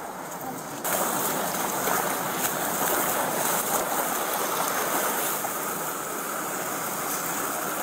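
Flash-flood water rushing across a road: a loud, steady rush that begins abruptly about a second in.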